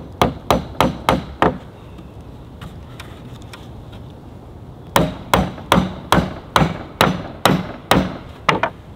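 Claw hammer driving nails into pallet-wood boards: a quick run of about six blows, a pause of a few seconds, then about a dozen more blows at roughly three a second.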